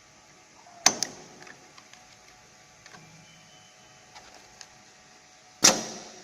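Copper coil winding machine giving two loud, sharp mechanical clacks, the first a quick double hit about a second in and the second near the end, over a faint steady machine hum and a few light ticks.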